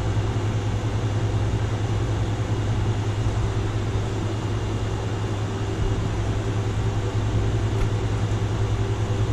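Steady mechanical whir with a low hum underneath, like a fan running, unchanging throughout.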